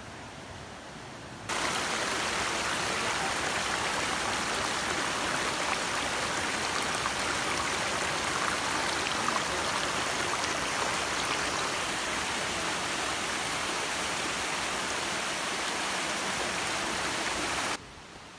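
Small mountain stream rushing and splashing over rocks, heard close up as a loud, steady rush that cuts in suddenly about a second and a half in and cuts off abruptly near the end.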